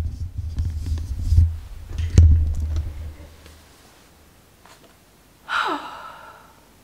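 Camera handling noise: a heavy low rumble with knocks and bumps as the camera is moved and set back in place, dying away after about three seconds. Near the end comes a short sigh falling in pitch.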